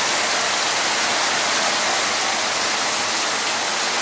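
Heavy tropical rain pouring down in a steady, even hiss.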